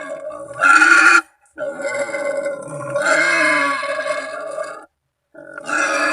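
Wild boar squealing in long, rough calls, one after another: one ends about a second in, a long one runs about three seconds, and another starts near the end. It is a boar call of the kind used to lure boars to a hunter.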